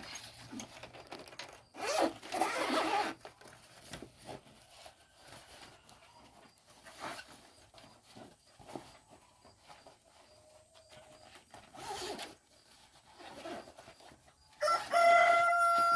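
Zipper on a soft-sided cat backpack carrier being pulled open to unzip its expandable back panel: one long rasp about two seconds in, then shorter pulls later. Near the end a loud, drawn-out animal call with a clear pitch begins.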